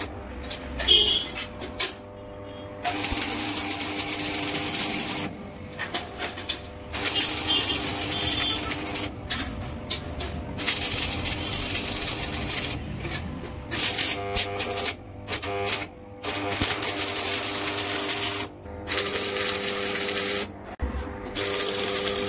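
Stick (arc) welding of sheet steel to an iron gate frame: the electric arc crackles and sizzles in runs of a few seconds, cutting out briefly between them. A steady hum sounds underneath.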